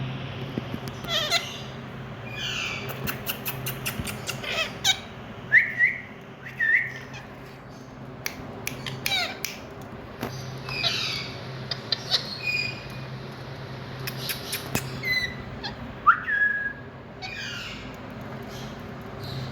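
Indian ringneck parakeet calling: a string of short chirps and squawks with a few quick rising whistles and scattered sharp clicks, over a steady low hum.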